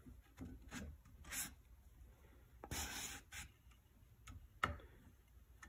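Faint rubbing and scraping of a rubber water-pump impeller being worked by hand onto an outboard motor's driveshaft, with a few light clicks; the longest scrape comes about halfway through.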